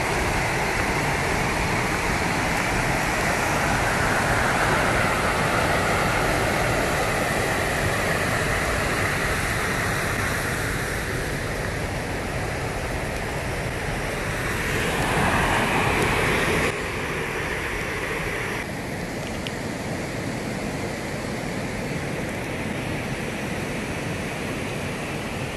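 River water rushing in a steady hiss, its tone shifting and dropping abruptly about 17 seconds in.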